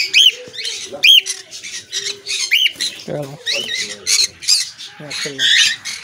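Cockatiels squawking over and over in an aviary, short rising-and-falling calls about once a second.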